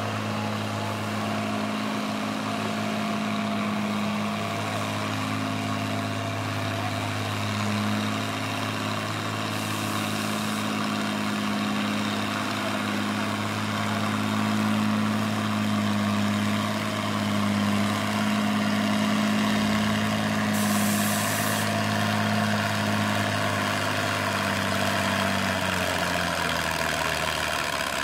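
Red International Harvester tractor's engine pulling a weight-transfer sled under heavy load, running at a steady engine speed. Its pitch sinks near the end as the engine bogs down and the tractor slows.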